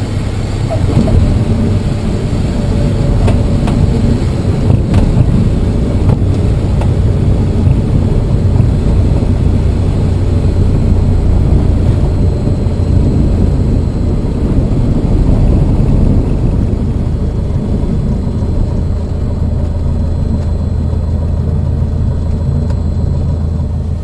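Piper Warrior's four-cylinder engine and propeller heard from inside the cockpit, running loudly and steadily as the plane rolls along the runway. The engine note settles lower about eighteen seconds in.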